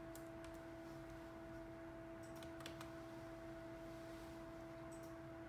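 A faint steady tone, one pitch with a second an octave above it, holding unchanged, with a few faint clicks.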